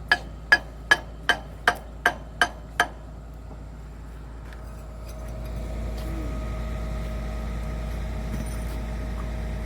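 Hammer striking steel on an excavator's H-link, eight ringing blows in quick succession, about two and a half a second, while the part is driven into place. About five seconds in, a steady machine drone sets in.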